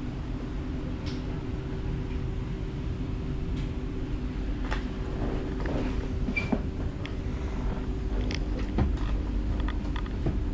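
Inside an ÖBB Cityjet electric train (Siemens Desiro): a steady low rumble and hum, with scattered light clicks and knocks from the carriage.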